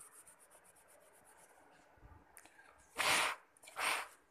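Faint quick rubbing of a pencil eraser on drawing paper at first, then two short, loud puffs of breath a little under a second apart, about three seconds in, blowing eraser crumbs off the paper.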